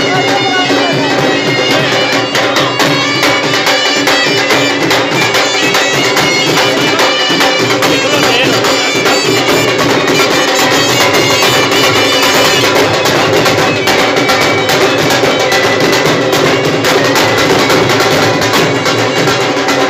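Folk band playing: dhol drums beating under a loud reed wind instrument that plays the melody over a steady drone.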